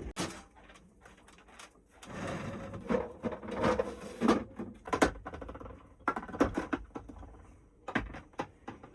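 Irregular clicks, knocks and clattering, like things being handled and set down.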